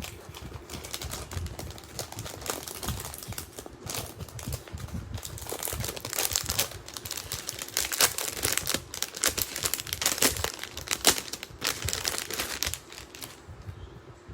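Packaging crinkling and rustling in irregular bursts as it is handled and opened. Busiest in the middle, dying down near the end.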